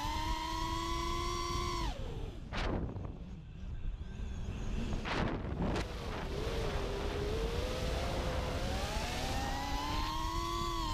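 Racing quadcopter's Emax 2306 2400KV brushless motors spinning APC 5x4x3 props, a high whine that rises and falls with the throttle. It drops about two seconds in, gives two quick sharp swoops, then climbs steadily and falls away near the end, over a low rumble of wind on the on-board GoPro's microphone.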